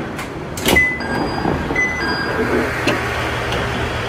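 Train door chime sounding a two-note high-then-lower tone twice as the sliding door opens, after a sharp click. A diesel railcar's engine hums steadily underneath.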